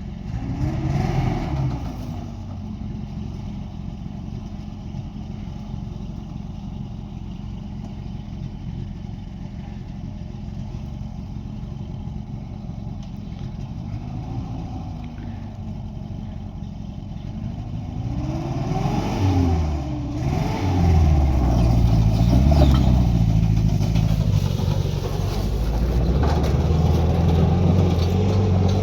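A motor vehicle's engine running, revving up and back down several times, with a cluster of revs and louder running in the last third.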